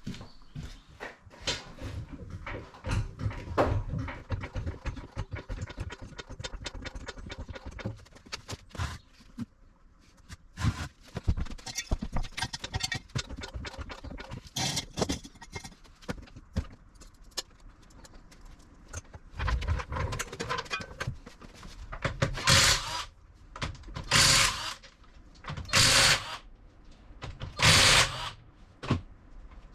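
Garage work on a car: irregular clicks, clunks and scrapes of tools and parts being handled, with four short, loud hissing bursts about two seconds apart near the end.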